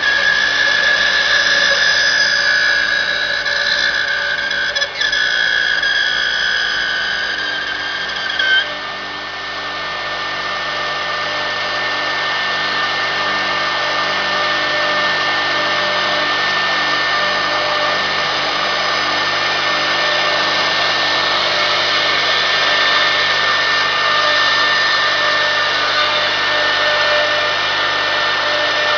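Rotary-axis CNC wood router running, its spindle giving a high, steady whine. About eight or nine seconds in the whine drops back and a broader, steady hiss takes over.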